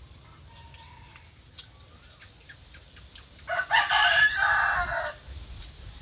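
A rooster crowing once, a loud call of about a second and a half a little past the middle.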